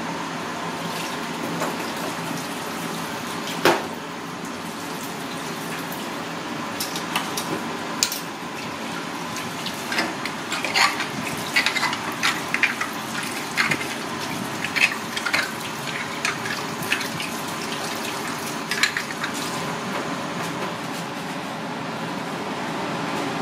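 Tap water running steadily into a stainless steel sink. A sharp knock comes about three and a half seconds in, and a run of quick clicks and clinks follows in the middle.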